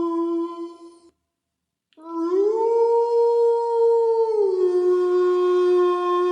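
Wolf howling. One long howl ends about a second in. After a brief silence a new howl starts, rises in pitch, holds high, then drops to a lower steady note that it keeps.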